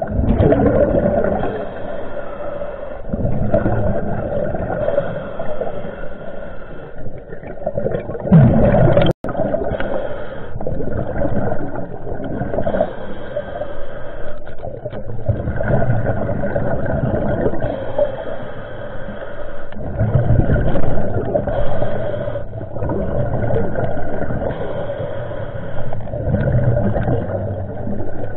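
Muffled underwater sound picked up by a submerged camera: water churning and gurgling around the housing, over a steady droning hum, with low swells rising and falling throughout.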